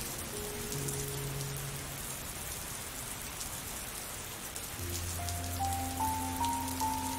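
Steady rain falling, an even hiss with the patter of drops. Soft music with slow held notes plays underneath, a deep bass note and a higher melody coming in about five seconds in.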